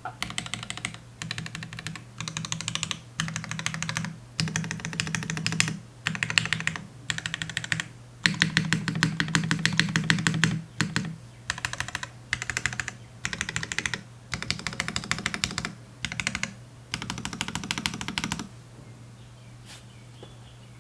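Typing on a custom mechanical keyboard with lubed and filmed Gateron Ink Black linear switches on a full FR4 plate and GMK keycaps. The typing comes in quick bursts of keystrokes with short pauses between them, the longest run about eight seconds in, and stops a couple of seconds before the end.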